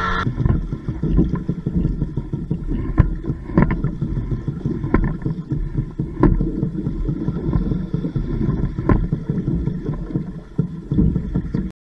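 Choppy water slapping against the hull of a small drifting boat, with gusty wind on the microphone and a few sharp knocks.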